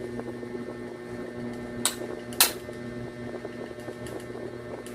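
Two sharp plastic clicks about half a second apart, about two seconds in, the second louder, as parts of a spin-mop kit are handled and fitted together; a steady low hum runs underneath.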